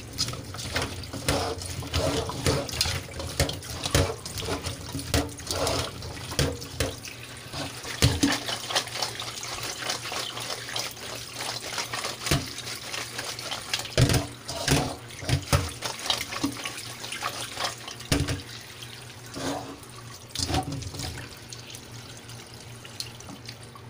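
Tap water running into a metal colander of diced squash as a hand stirs and shakes the pieces, with frequent short knocks of the pieces tumbling against the colander.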